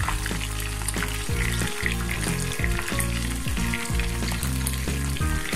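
Batter-coated Bombay duck (loitta) fish pieces sizzling and crackling in hot oil in a pan, a steady frying sound.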